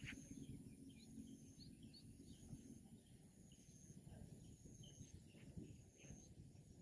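Near silence: faint rural ambience with scattered short bird chirps and a faint, high insect call that repeats every second or two.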